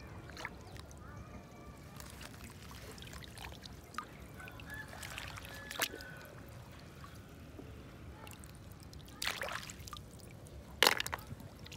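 Hands working in shallow lake water, making small trickling and dripping sounds as snails are picked off a submerged log. A few sharper splashes come through, the loudest one near the end.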